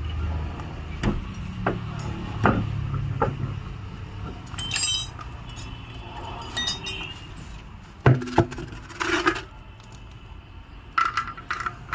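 Workshop noise: scattered metallic clinks of tools and parts, and a few sharper knocks about eight to nine seconds in, over a low rumble that fades after the first few seconds.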